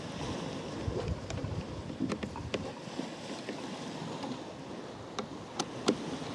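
Wind and sea washing steadily with wind buffeting the microphone, over which come several short, sharp clicks and knocks as the parts of a rope clutch are handled and fitted together; the loudest click comes near the end.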